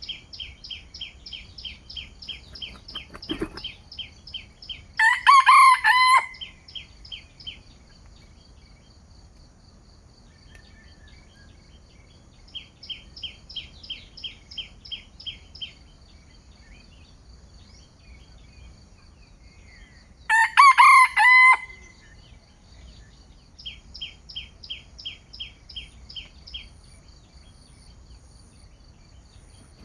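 A junglefowl rooster crows twice, each crow lasting just over a second, about 5 s in and again about 20 s in. Between the crows, a bird repeats a fast series of high chirps in several runs of a few seconds each.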